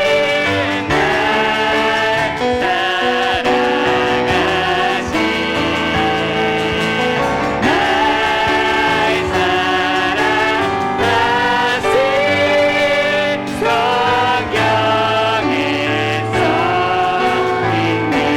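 Church praise team singing a worship song with piano accompaniment.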